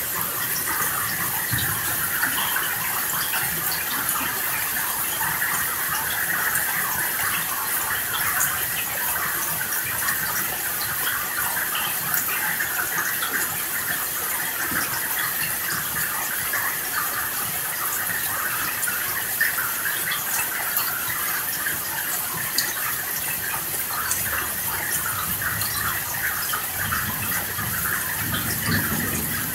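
Heavy rain falling steadily, a dense, even hiss without let-up. A soft low rumble of thunder rises near the end.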